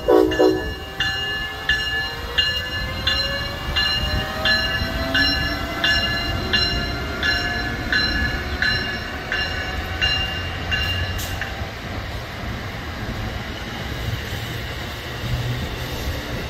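Amtrak passenger train led by an ACS-64 electric locomotive passing at speed: its horn blast ends about half a second in, and a bell rings steadily about once every 0.7 seconds until it stops around 11 seconds in. Beneath it, a whine falls in pitch as the locomotive goes by, and the coaches roll past with a steady rumble.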